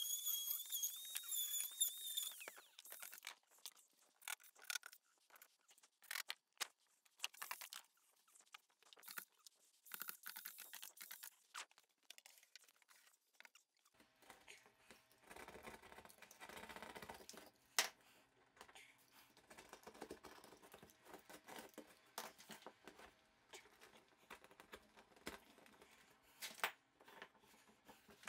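A small corded power tool whines steadily and stops about two seconds in, followed by scattered light clicks, taps and short scrapes of handwork on the wall. From about halfway a faint steady hum runs under more clicks.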